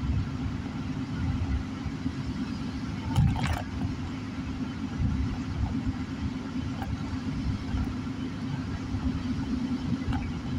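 Inside a moving car on a wet road: steady low rumble of the engine and tyres, with one brief louder rush about three seconds in.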